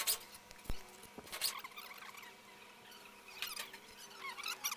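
Sharp metal clicks and taps of a hand tool working on the valve springs and rocker gear of a Mercedes-Benz OM501 diesel cylinder head, with a dull thud just under a second in and thin, high squeaks about three and a half seconds in and again near the end.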